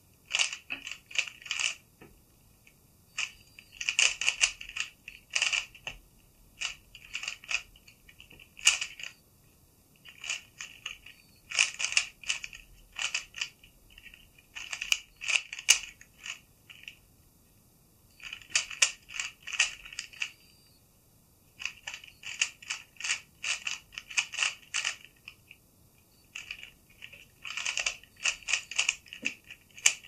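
Plastic Meilong 3x3 speedcube being turned fast during a timed solve: rapid clacking of its layers in bursts of a second or two, with short pauses between the bursts.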